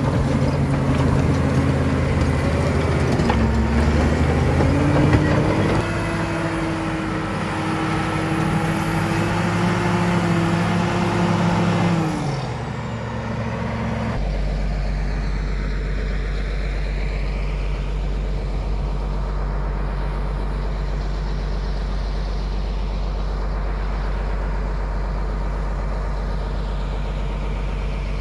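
Caterpillar D7 crawler dozer's diesel engine working as the blade pushes earth and rock, its pitch stepping up about four seconds in. At about twelve seconds the sound changes to a steadier, lower engine drone.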